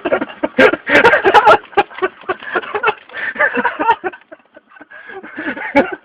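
Two people laughing hard in fits, loud, choppy bursts of laughter with short breaks, heard through a phone recording's narrow sound.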